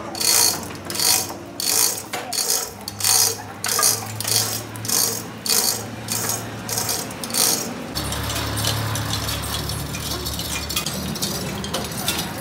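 Rhythmic mechanical ratcheting clicks, about two strokes a second, giving way about eight seconds in to a steady, even mechanical noise.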